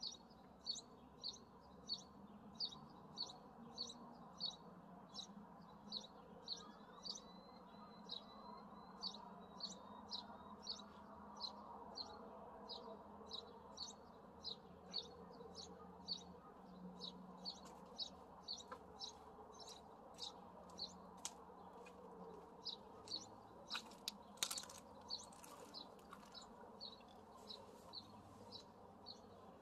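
Female merlin calling: a long, steady series of short high notes, about two a second, with one louder sharp note about three-quarters of the way through.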